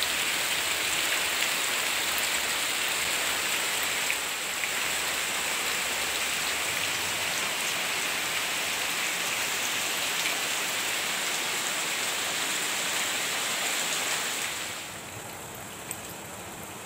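Rain falling steadily on leaves, an even hiss. It drops to a quieter level about two seconds before the end, and a single light click comes near the end.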